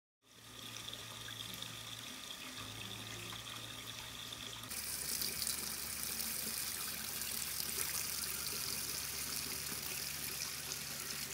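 Water running steadily into concrete soaking tanks full of bark-fibre strips for papermaking. The flow grows louder and hissier about five seconds in.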